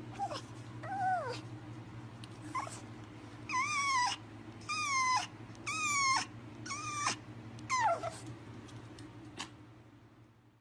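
Pomeranian whining in a series of about eight short, high-pitched cries that arch and fall in pitch, the loudest in the middle of the stretch, over a steady low hum.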